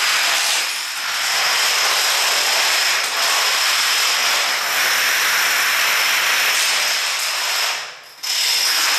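Long runs of plastic dominoes toppling in chain reactions: a rapid, continuous clatter that briefly drops away about eight seconds in.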